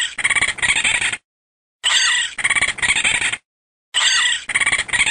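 Raccoon calling with high-pitched chittering squeals: a rapid pulsing trill in three bursts of about a second and a half each, separated by short silences.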